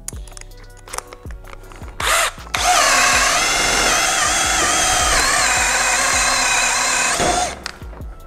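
Cordless Ryobi angle drill (the older RAD1801M) boring into a timber beam. After a few light clicks comes a brief blip about two seconds in, then the motor runs under load for about four and a half seconds with a whine that wavers in pitch, and stops near the end.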